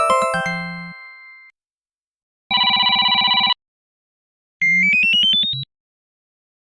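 Samsung Galaxy S25 Ultra ringtone and notification sounds played one after another: a chiming melody fading out, then a one-second trilling ring, then a quick run of short notes climbing in pitch.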